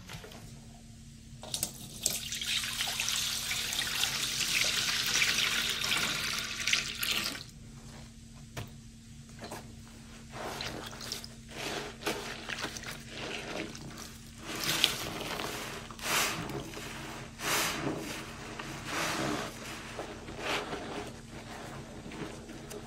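Green Mr. Clean liquid cleaner with Febreze poured from its bottle into a stainless steel bowl, a steady rush lasting about five seconds. After that comes a sponge being squeezed and squished in the soapy cleaner, a run of irregular wet squelches and sloshes.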